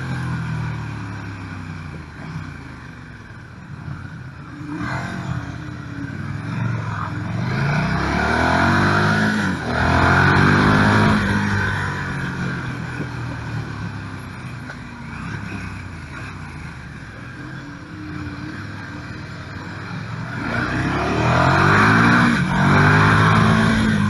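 KTM 1290 Super Duke R V-twin heard from the rider's seat, its pitch rising and falling as it pulls between bends and slows for them. It surges loudest twice, about a third of the way in and near the end.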